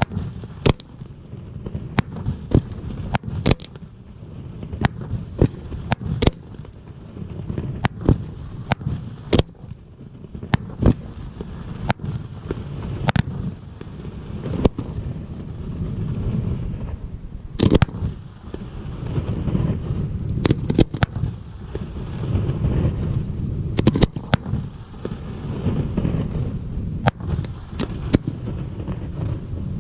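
Aerial fireworks display: a rapid, irregular series of sharp bangs from shells bursting, one every half second or so, over a continuous low rumble of launches and crackle.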